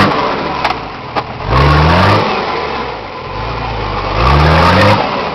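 Off-road pickup's engine revved hard in short bursts, about 1.5 s in and again about 4 s in. The pitch climbs during each burst and drops back to a lower running note in between, with a few sharp metallic knocks.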